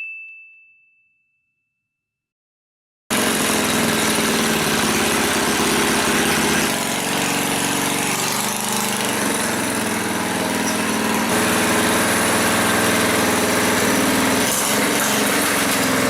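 A single ringing tone dies away at the start. From about three seconds in, a 212cc Predator single-cylinder four-stroke engine with its governor removed runs steadily on the motorized bike, and its engine speed changes a couple of times.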